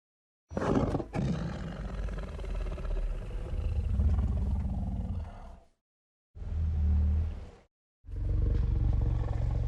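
Red Bluster sea-monster roar sound effects: three separate deep roars with dead silence between them. The first is long, about five seconds, and opens with a sharp crackling burst; the second is short, about a second; the third starts near the end.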